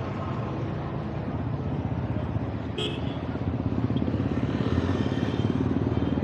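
Street traffic with motorcycle engines running, growing louder about halfway through, and a brief high chirp a little before that.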